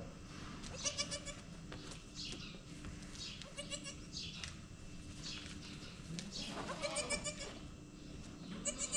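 Goats bleating: several short, high-pitched calls come a few seconds apart, with the loudest near 7 s and near the end.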